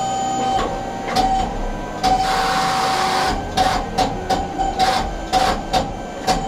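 Wood-Mizer LT300 sawmill's hydraulic log handling at work: a steady whine that breaks off and starts again several times, with a run of about eight short, sharp knocks and hisses in the second half as the log is moved on the bed.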